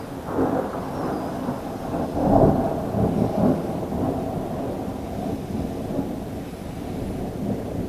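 Rolling thunder rumbling, swelling in a few pulses to its loudest about two and a half seconds in, then dying down to a steady low rumble.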